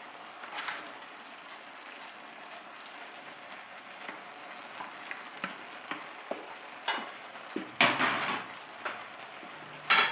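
Wet boiled noodles sliding from a plastic colander into a hot wok of stir-fried vegetables and chicken, with a steady sizzle and small taps of a wooden spoon. A few louder knocks and scrapes of spoon and colander against the wok come near the end.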